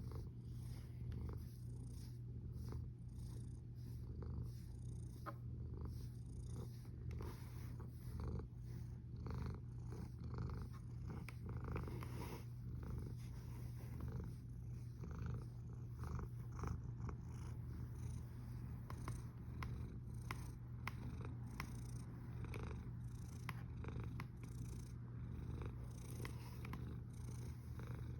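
A cat's continuous low rumble, which the uploader calls snoring, with scattered faint clicks over it.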